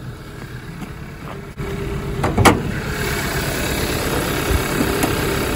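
2014 Hyundai Elantra's four-cylinder engine idling with a misfire, which the mechanic traces to cylinder 1's ignition coil. It gets louder about a second and a half in, and one sharp click comes about a second later.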